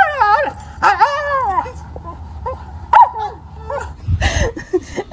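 Husky vocalizing in long, bending yowls, two drawn-out ones followed by a few shorter ones. Near the end a short burst of noisy rustling with a low thump.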